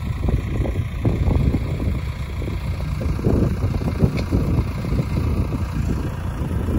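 Case IH tractor's diesel engine running as the loader tractor drives across the paddock, under an uneven low rumble of wind on the microphone.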